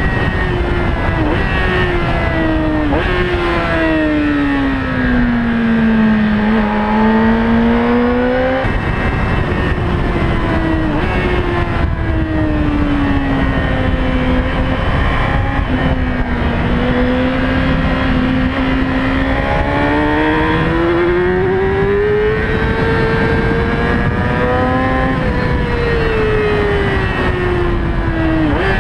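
Yamaha R6 sport bike's 600 cc inline-four engine heard through its intake with a performance air filter, its pitch sinking and climbing as the rider rolls off and opens the throttle. The pitch jumps up suddenly about eight seconds in and again at the end, under a steady low rumble of wind and road.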